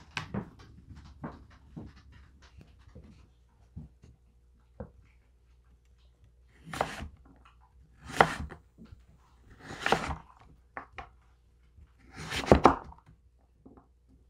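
Knife chopping raw butternut squash on a wooden cutting board: a run of quick knocks in the first few seconds, then four longer scrapes about one to two seconds apart as the blade sweeps the cut cubes up off the board.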